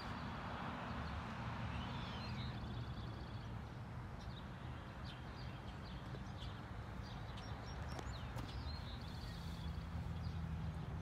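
Footsteps crunching on gravel, with birds chirping in the background and a low steady hum.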